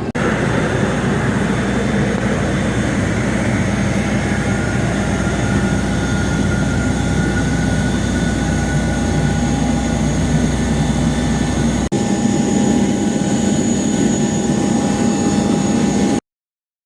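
Jet airliner engines running with a steady loud drone and a faint high whine over it. It breaks off briefly about twelve seconds in, resumes, then cuts off suddenly near the end.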